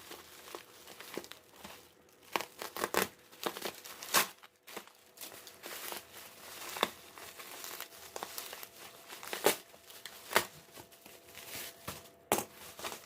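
Parcel packaging being torn open and crumpled by hand: irregular rips and crinkling, with a few sharp loud tears about four, nine and ten seconds in. The package is tightly wrapped.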